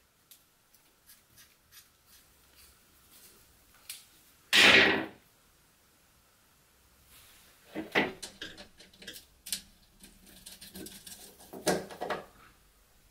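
Small hand tools and steel parts being handled on a workbench: light metal clicks and taps, a louder clank with a short ring about four and a half seconds in, then a run of rattling and scraping as screws and a wire terminal are worked on.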